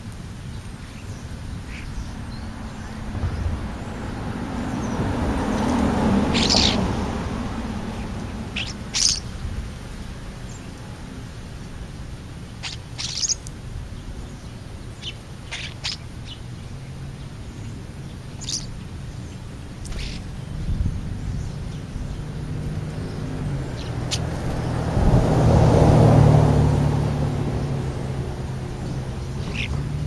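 European starlings at a ground feeding spot giving short, sharp high-pitched calls every few seconds. Two vehicles pass by, each swelling and fading, one about six seconds in and a louder one about 26 seconds in.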